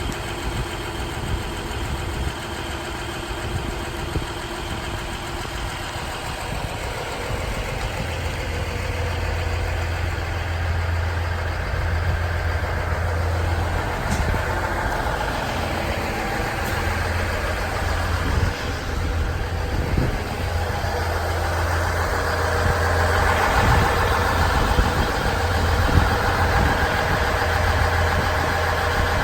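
Diesel engines of a KiHa 110 series diesel railcar train running, a steady low hum that grows gradually louder through the second half.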